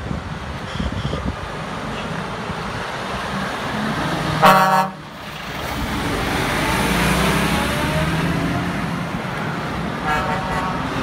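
Mercedes-Benz Actros lorry's diesel engine running as it pulls away, with one loud horn toot about four and a half seconds in and a fainter, shorter toot near the end.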